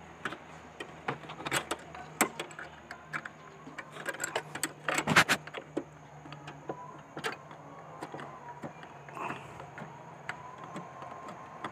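Metal wrench clinking against the brake line fittings of a brake master cylinder as the lines are undone: a scattered series of short, sharp metallic clicks, loudest about five seconds in.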